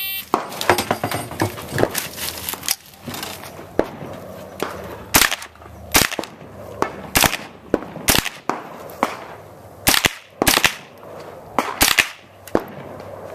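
AR-style rifle firing a string of single shots at an uneven pace, some in quick pairs about half a second apart, others a second or more apart. Fainter cracks and clicks come in the first couple of seconds, and the louder shots start about five seconds in.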